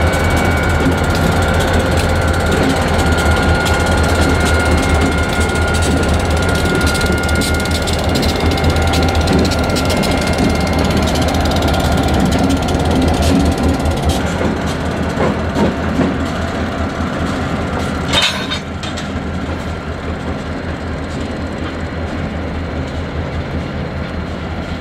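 Pan Am Railways and Norfolk Southern diesel locomotives rolling slowly through the yard, engines running with a low drone and a thin high wheel squeal over the first half. A single sharp crack about three-quarters of the way through, after which the engine sound is quieter and duller.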